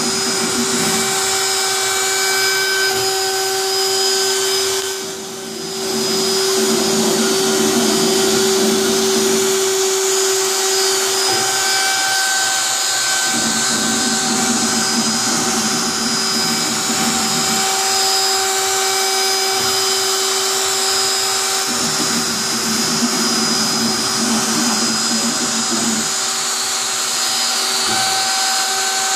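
DeWalt router spindle on a Samson 510 CNC table running at speed and carving into rigid foam board: a steady high-speed motor whine over cutting noise, dipping briefly about five seconds in.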